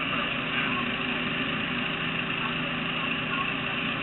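An engine idling steadily with an even hum.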